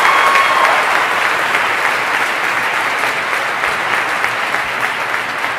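Audience applauding the standing award recipients, many hands clapping at once and slowly dying down.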